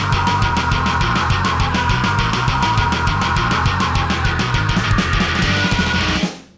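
Loud, driving heavy rock music with a fast, even beat, fading out near the end.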